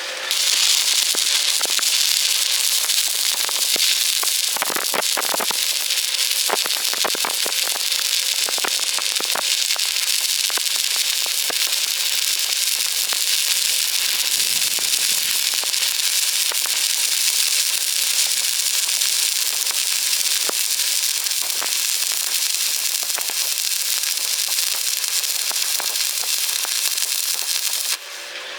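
Electric arc welding: the arc's continuous loud crackle and hiss, peppered with sharp pops. It starts suddenly just after the beginning and breaks off abruptly near the end as the arc is broken.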